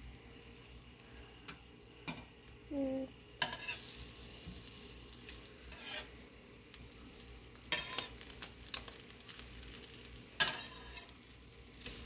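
Eggs sizzling in a frying pan, a steady light hiss, with several sharp scrapes and clicks of a metal spatula and fork against the pan.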